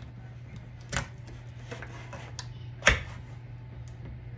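A metal food can and kitchen utensils being handled: scattered light clicks, with two sharper knocks about one and three seconds in, over a steady low hum.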